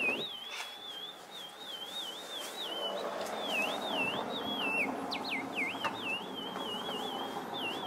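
A high, thin whistling tone that warbles up and down in quick wavy glides, breaking off briefly and swooping steeply downward a few times about five seconds in, over faint held notes.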